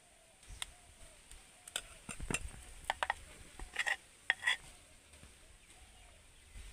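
A spoon clinking and tapping against batter bowls and the aluminium cake tin as cake batter is spooned into the tin in alternating dollops: a string of light, sharp clinks, bunched in the first two-thirds.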